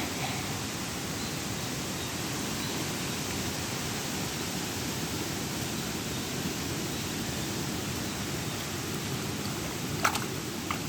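A steady rushing noise, with two short sharp clicks near the end.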